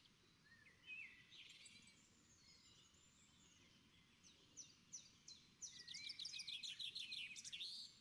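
Faint birdsong: scattered chirps and short sliding whistles, building to a fast trill near the end.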